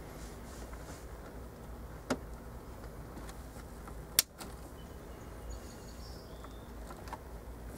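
Scissors snipping through stereo wiring-harness wires: two sharp clicks about two seconds apart, the second much louder, over a steady low background noise.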